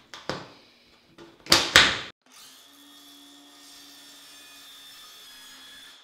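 Circular saw with a framing blade cutting a strip off a foam shower pan. A loud burst of cutting comes about a second and a half in, then a steady, quieter motor whine.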